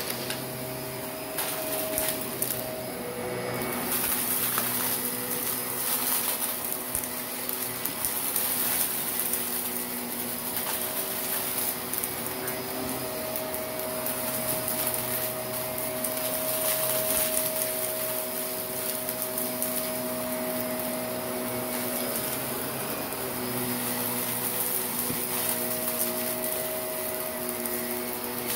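Shark Navigator upright vacuum running steadily with its brush roll on carpet, crunching and crackling with many small clicks as it sucks up fine dirt and grit.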